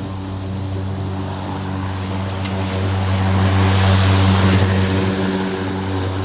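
Petrol lawn mower engine running steadily under load, swelling louder and hissier about halfway through, then easing back.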